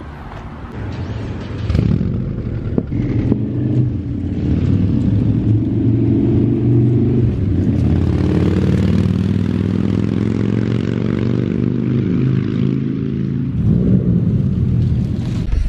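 Turbocharged Subaru WRX flat-four engine and exhaust as the car pulls away and drives off. The engine sound swells about two seconds in, then holds loud with its pitch rising a little and easing off.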